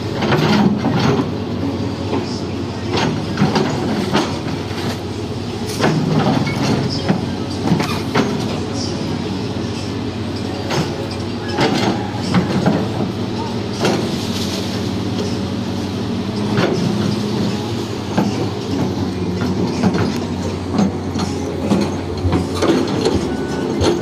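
Crawler excavator's diesel engine running steadily, with repeated metallic clanks and knocks throughout.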